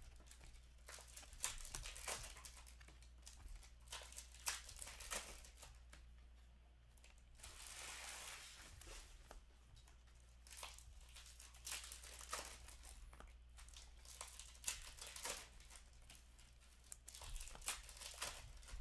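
Upper Deck hockey trading cards being handled: faint, irregular clicks and flicks of card stock as cards are leafed through and set onto stacks, with a longer soft rustle about eight seconds in.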